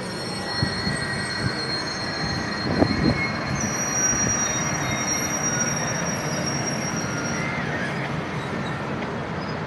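Union Pacific streamlined passenger cars rolling past on steel wheels: a steady rumble of wheels on rail with thin high wheel squeals. One squeal holds from about three and a half to seven and a half seconds in. There are a couple of light knocks about three seconds in.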